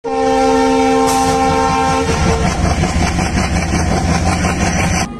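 Indian Railways WAG-9HC electric locomotive's air horn sounding one long blast of about two seconds. It is followed by the rumble and clatter of the train rushing past at around 100 km/h. The sound drops sharply just before the end.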